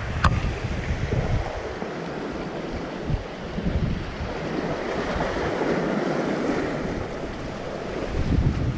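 Wind buffeting the microphone over sea waves washing against the concrete tetrapods of a seawall, with one sharp click just after the start.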